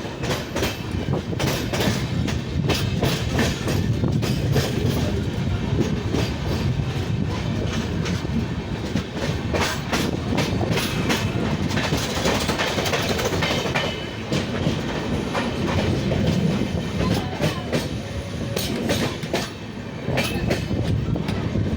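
Train running on the rails through a tunnel: a steady loud rumble with rapid clicking of the wheels over the rail joints.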